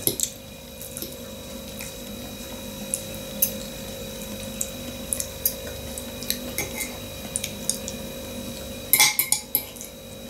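A metal fork clicking and scraping against a ceramic bowl of potatoes: light scattered clicks, with a quick run of louder clicks near the end.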